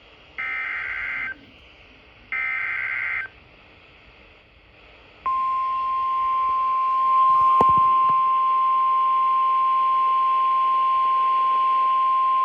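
NOAA Weather Radio Emergency Alert System alert: the last two of three SAME header data bursts, each about a second long, then about five seconds in the steady single-pitch 1050 Hz warning alarm tone starts, with one brief click partway through. The header and tone announce that a warning message follows, here a severe thunderstorm warning.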